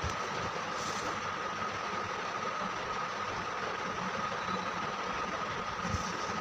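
Steady mechanical hum with a constant high whine, with faint soft handling sounds about a second in and again near the end.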